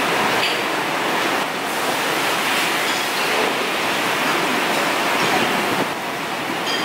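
Steady din of a busy dining hall: many distant voices blurred into an even wash of noise, without clear words.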